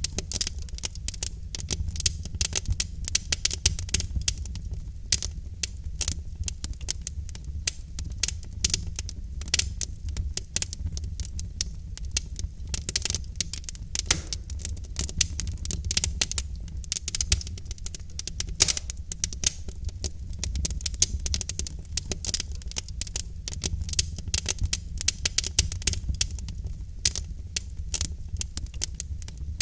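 Wood logs burning in a fireplace, crackling and popping with many quick irregular snaps over a steady low rumble of the fire.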